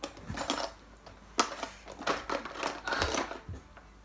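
Makeup items being handled: irregular small clicks and rustles as things are taken out and set down, with a sharper click about a second and a half in.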